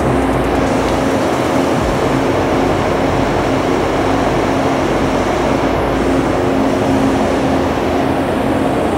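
Paint spray booth's ventilation running: a steady rush of air with a faint low hum.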